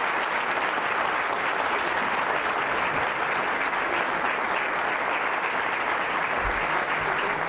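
Congregation applauding steadily, a dense, unbroken round of clapping.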